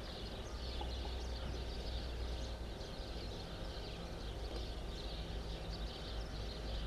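Small birds chirping and twittering in many quick short notes, over a steady low rumble.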